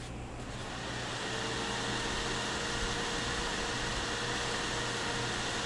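Desktop PC's tower CPU cooler fan and GeForce RTX graphics card fans spinning up at power-on and running at full speed, a steady whoosh that builds over the first second or so. A faint steady whine joins about a second in. Fans running flat out at boot is normal for this Ryzen system.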